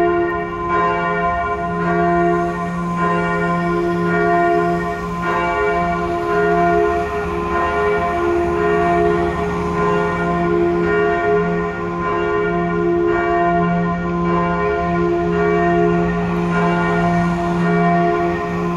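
The largest bell of St. Albertus Magnus church, a church bell with the nominal note f', swinging and ringing alone. Strokes come at a regular pace, each one ringing on into the next.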